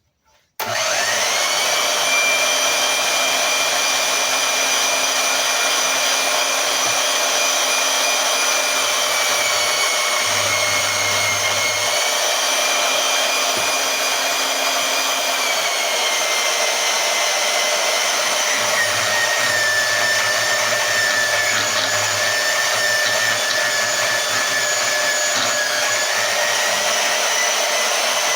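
Harbor Freight portable band saw switched on about half a second in, its motor running with a steady whine as the blade cuts through rebar. The whine drops in pitch a little in steps through the cut, with the saw labouring in the thick steel.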